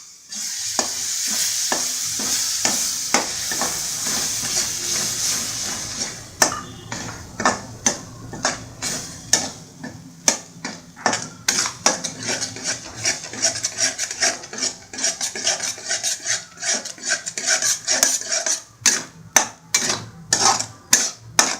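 Ground onion, tomato and green chilli paste sizzling in hot oil and spice powders in a kadai, a steady hiss for the first six seconds or so. Then a spoon knocks and scrapes against the pan many times as the masala is stirred.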